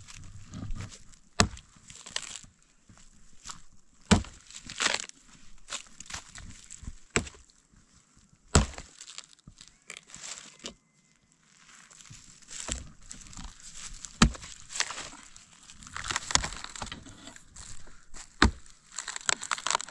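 Axe chopping firewood: several sharp blows a few seconds apart, with crunching and rustling of wood chips and branches between them.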